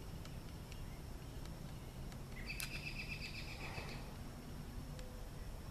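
A songbird sings one short trill of rapid, evenly repeated notes about two and a half seconds in, over a steady low background rumble.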